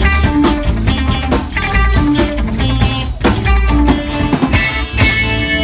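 Live rock band, electric guitar and drum kit, playing the last bars of a song with repeated drum and cymbal hits; a heavy final hit comes about five seconds in and the music breaks off just after.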